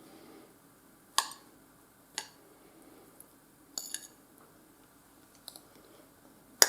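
Utensil clicking and clinking against a plate and cake tin while a piece of freshly baked, crumbly cake is cut out and lifted: about five separate sharp clicks a second or so apart, the last the loudest.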